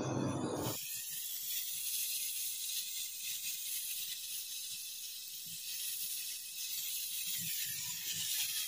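Steady high-pitched hiss of a brazing torch flame, starting about a second in, as it seals the pinched-off copper process tube of a refrigerator compressor after the refrigerant charge.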